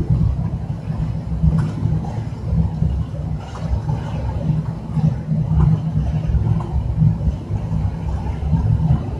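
Air buffeting the microphone: a loud, uneven low rumble that runs on without a break, with a few faint knocks.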